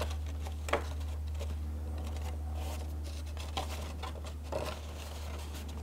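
Stiff black cardstock being handled and pressed together at a glued tab: soft paper rustles and a few crisp clicks, about a second in and again near the end, over a steady low hum.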